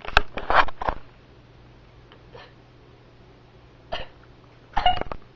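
Vocal sound effects made with the mouth: a quick cluster of short, sharp, hiccup- or cough-like noises in the first second, then a single short burst about four seconds in and another just before the end.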